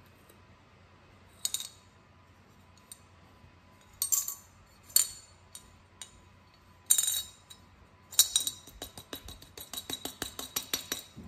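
Coins clinking inside a ceramic coin bank as it is tilted and shaken: a few separate clinks, then a quick run of rattling over the last three seconds.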